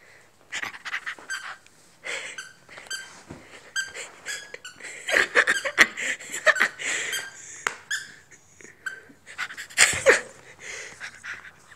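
Small dog making clusters of short, high-pitched squeaks mixed with breathy huffing, several a second, loudest about halfway through.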